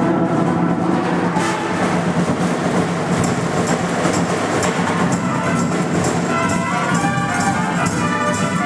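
Marching band playing loudly: brass holding sustained chords over a steady pulse of drum hits.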